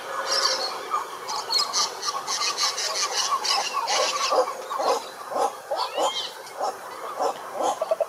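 Frogs and toads calling in a chorus: many short, irregular croaks overlapping, with rapid high chirping above them.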